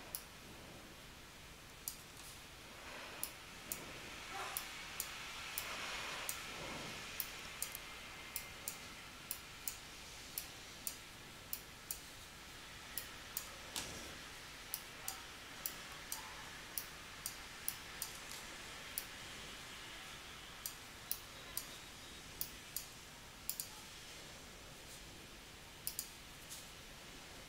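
Computer mouse button clicking over and over at an uneven pace, about one to two sharp clicks a second, as anchor points are placed one by one to trace an outline with a drawing program's pen tool.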